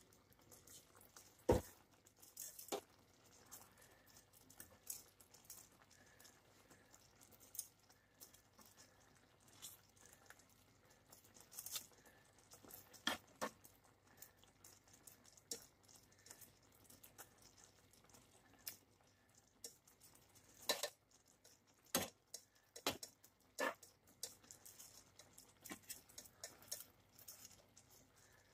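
Metal kitchen tongs clicking and knocking against a cooking pan and bowl as pieces of fried fish are moved into a vegetable sauce. The taps are irregular and scattered, with a few louder knocks.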